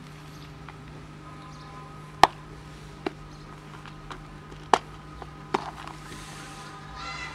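Plastic clip-lock food container being unlatched: four sharp plastic clicks a second or so apart as the lid's catches are snapped open, with a few fainter ticks between.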